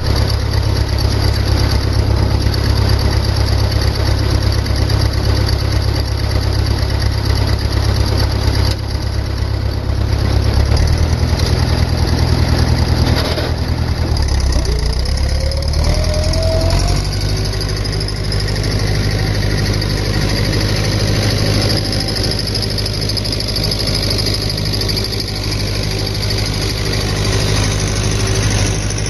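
1964 David Brown tractor engine running steadily as it pulls a harrow across the paddock, its note shifting down and settling a little past the middle.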